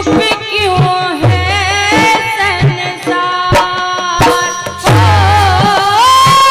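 Indian devotional folk music: a woman singing a wordless, ornamented melodic line with vibrato, ending on a long held note, over deep hand-drum (tabla) strokes.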